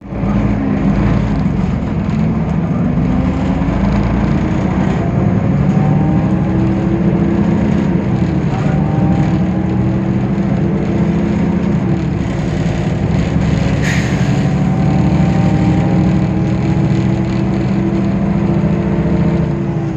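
Temsa Avenue LF city bus with a DAF PR 228 diesel engine and ZF 6AP 1400B automatic gearbox under way: a heavy engine drone whose pitch rises slowly and drops back several times, as at gear changes. A sharp click with a brief high tone about 14 seconds in.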